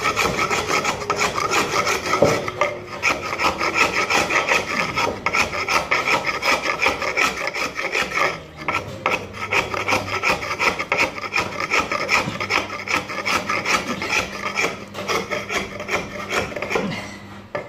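A small hand hatchet scraping and chipping dried tile adhesive off a concrete floor in rapid repeated strokes, with gritty rasping against the concrete. There is a short pause about halfway through.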